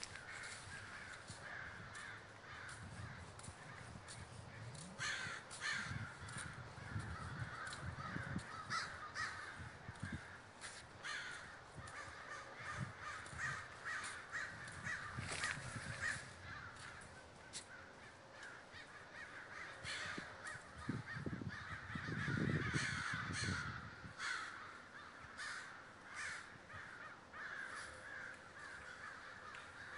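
A large flock of American crows cawing together in a dense, unbroken chorus of overlapping calls as they gather in roost trees. A low rumble comes in a few seconds in and again, loudest, about two-thirds of the way through.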